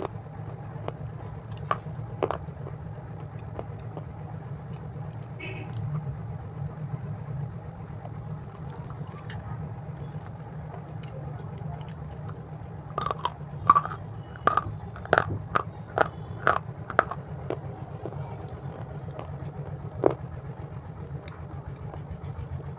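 Close-miked chewing of crisp chips: sharp crunches come in bursts, a few at the start and a quick run of them a little past the middle, then one more, over a steady low hum.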